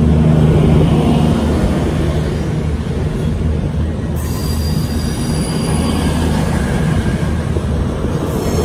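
CrossCountry Class 221 Super Voyager diesel-electric unit pulling out close by, its underfloor diesel engines running steadily under power with a low rumble from the passing coaches. A thin high squeal joins about four seconds in.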